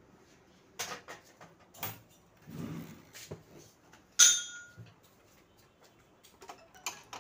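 Plastic printer housing parts being handled: a run of clicks and knocks with a duller shuffling knock near the middle, and one loud sharp knock about four seconds in that rings briefly.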